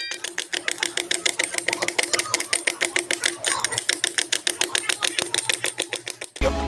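A machine tapping or clicking rapidly and evenly, several strokes a second, stopping suddenly near the end.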